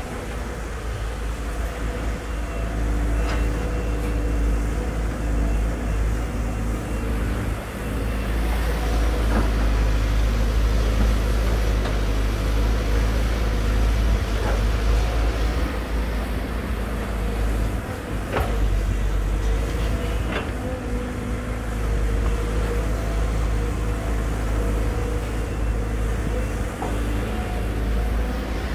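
Volvo EC210DL crawler excavator digging and swinging: its diesel engine runs steadily under working load, with a sharp metallic clank now and then.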